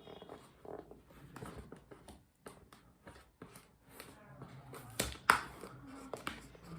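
Handling noise: scattered taps, clicks and rustles, with a sharper knock about five seconds in.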